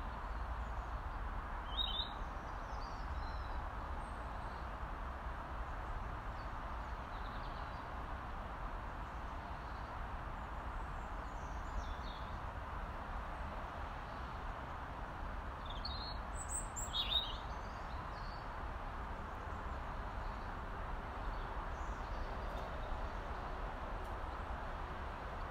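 Robin giving a few short, high calls, once about two seconds in, again around twelve seconds, and a brief cluster near seventeen seconds, over steady background noise.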